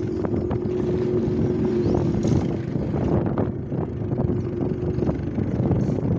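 Motorcycle engine running under way, with a steady engine note over rough wind buffeting on the microphone.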